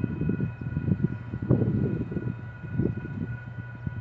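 Gusts of wind buffeting the microphone in uneven low rumbles that ease off toward the end, over several faint steady high-pitched tones.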